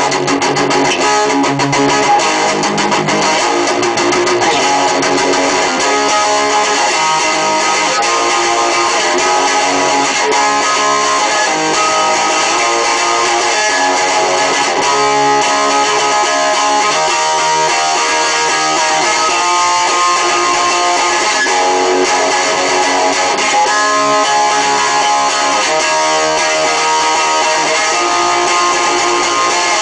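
Guitar playing without a break, strummed chords and changing notes.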